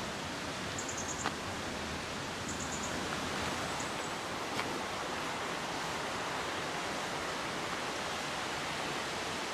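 River water rushing: a steady, even noise with no rhythm or pitch, from a river flowing toward a weir.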